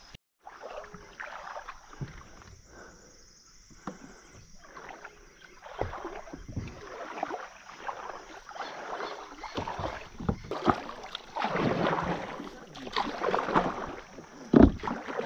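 Kayak paddle strokes dipping and splashing in river water, with scattered knocks, getting louder and more frequent about halfway through.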